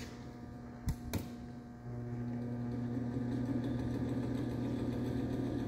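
Two sharp clicks of the lathe's speed-control switch. About two seconds in, the 1/4 hp DC motor and spindle of a Hardinge HSL high-speed polishing lathe start up and run with a steady hum that builds slightly as it comes up to speed, turning in the reverse direction.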